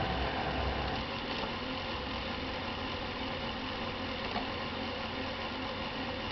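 Dell 1520 laptop making a steady mechanical running noise with a low hum, a little stronger in the first second; the fault behind it is unknown.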